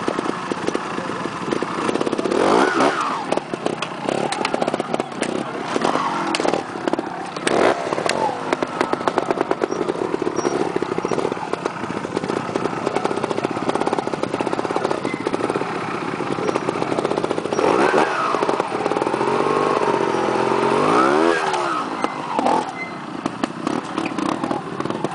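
Trials motorcycle engine running throughout as the rider works over a rock section, with short throttle blips where the revs climb and fall sharply, about three seconds in, around six seconds, and twice near the end.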